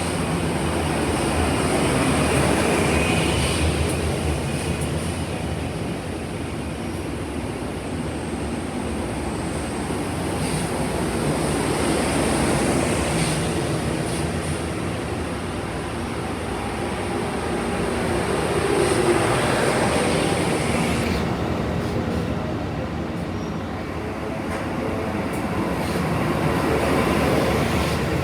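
Amtrak Auto Train cars rolling past, a continuous rumble of steel wheels on rail that swells and eases several times as the cars go by.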